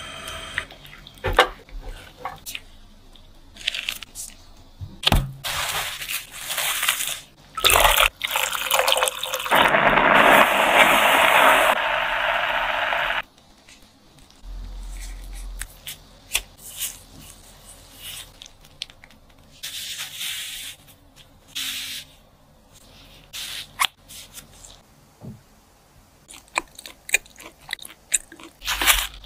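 Scattered clicks and taps of hands-on food-preparation work, with rustling noise in a few stretches. The loudest is a steady rush lasting about three seconds that cuts off suddenly around the middle.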